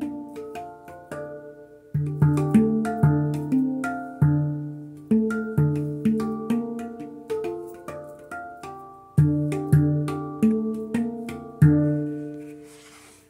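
12-note D handpan played with bare hands: a flowing run of single struck notes, each ringing on and overlapping the next as it slowly fades. The last note rings out and dies away near the end.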